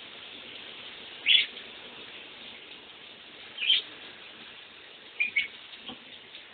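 A pet lovebird chirping: short, sharp single chirps about two seconds apart, then a quick double chirp near the end, over the steady hiss of a running shower.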